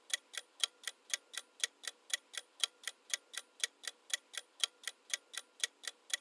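Clock ticking sound effect counting down a timer: short, even ticks at about four a second.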